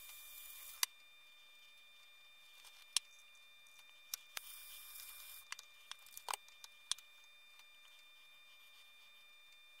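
Quiet bench work: scattered light clicks and taps as wires and small parts are handled, several close together around the middle, over a faint steady high whine. A soft hiss runs briefly near the start and again midway, each time ending with a click.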